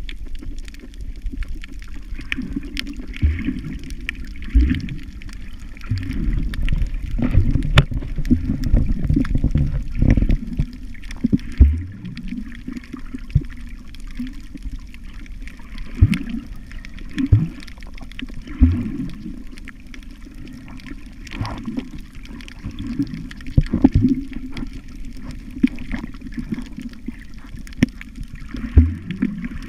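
Sea water heard through an underwater camera: muffled sloshing, with a low gurgle every second or two and scattered faint clicks.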